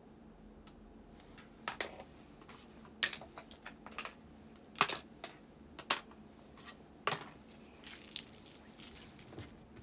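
Handling noise close to a phone's microphone: irregular sharp clicks and rustles as hands move around it, the loudest about three, five and seven seconds in.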